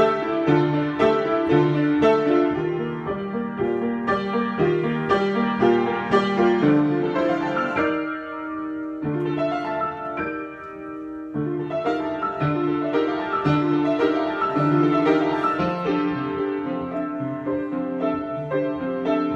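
Improvised piano music, with chords and notes struck in a steady rhythm. About halfway through it thins out and softens for a few seconds, then picks up again.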